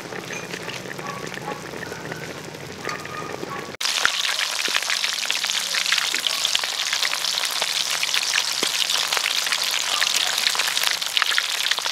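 Duck pieces deep-frying in a wok of hot oil: a loud, dense sizzle with many small crackles and pops, starting abruptly about four seconds in. Before it, a quieter low simmer from a steaming pot of seasoned duck pieces.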